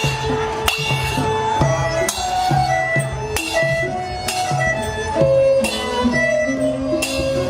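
Traditional-style music: a string melody over a steady beat of roughly two strokes a second.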